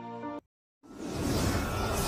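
Background music trails off and cuts out about half a second in, leaving a short dead silence. Then a swelling whoosh with a deep rumble starts up: the opening of an animated logo sting.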